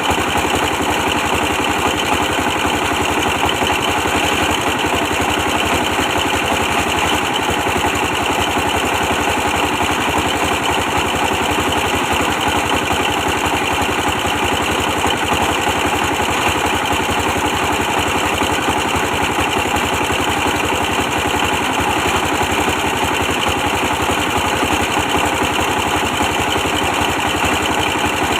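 24 hp diesel engine running steadily at an even speed, driving a brick press.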